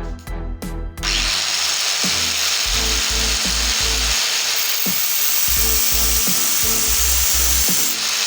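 A power tool starts running about a second in and keeps going steadily, a loud even whirring grind, over background music with a steady bass line.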